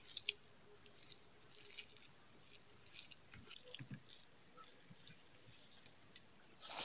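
Faint, scattered wet clicks and squishes of fingers mixing rice with chicken and pumpkin curry on a banana leaf and lifting it to the mouth, with chewing.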